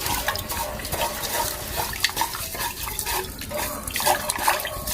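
Water splashing and sloshing in a cooking pot, with irregular light clinks and drips.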